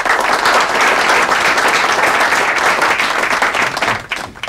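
Audience applauding after a speech, a dense steady clapping that dies away near the end.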